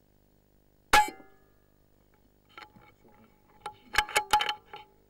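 Air Arms S410k pre-charged air rifle firing once about a second in: a sharp crack with a short ringing after it. Near the end comes a quick run of about six metallic clicks, the rifle's side lever being worked to cycle the next pellet.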